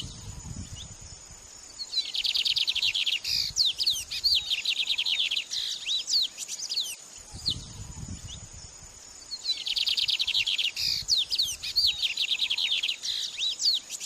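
White-rumped shama (murai batu) song: two bouts of rapid, varied chirps and trills of about three and a half seconds each, one starting about two seconds in and a nearly identical one about nine and a half seconds in. A thin, steady, high-pitched tone runs beneath them.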